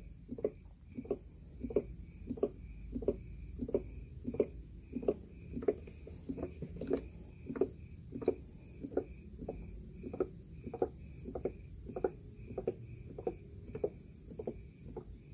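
Engine oil glugging out of a plastic oil jug into an engine's filler neck, a regular gulp about every two-thirds of a second as air bubbles back into the jug.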